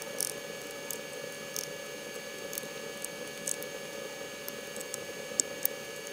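A steady hum with faint, irregular small clicks over it: a small Phillips screwdriver turning out the screws of a laptop's bottom panel.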